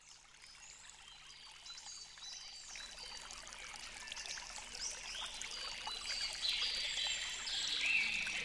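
Running water, like a stream, with birds chirping, fading in from silence and growing steadily louder. The high chirps get busier over the last few seconds.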